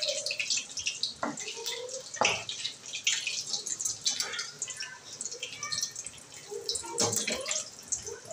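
Potato puris (aloo kachori) deep-frying in hot oil in a steel kadhai, sizzling and crackling. A few sharp metal knocks come through, the wire skimmer striking the pan as the puris are turned.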